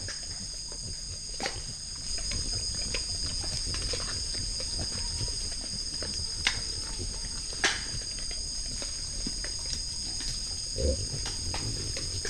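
Night insect chorus, a steady high-pitched trilling of crickets, with a few sharp clicks and cracks and a short low grunt near the end as peccaries forage.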